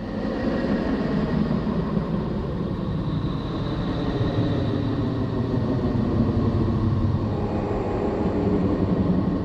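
Space-sound recording presented as the sound of the planet Neptune, the kind made by turning spacecraft radio and plasma-wave data into audio: a steady low drone with faint held tones above it, without a break.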